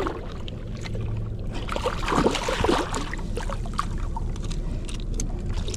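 Water sloshing and splashing as a big bluefish is held in the water at the side of a boat, its body moving in the angler's hands. A steady low rumble runs underneath.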